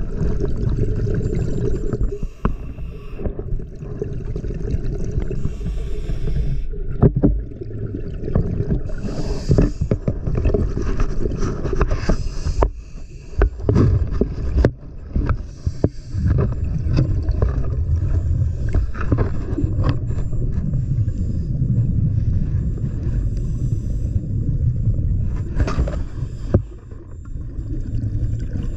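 Underwater sound on a scuba dive: the diver's regulator breathing, a hiss on each inhalation every several seconds and a low rumbling gurgle of exhaled bubbles between. Scattered sharp clicks and knocks run through it.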